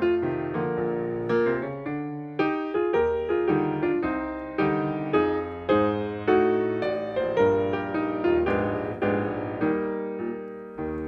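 Solo piano accompaniment for a classical ballet class exercise: chords and melody notes struck in a steady, even pulse, roughly every half second, each fading before the next.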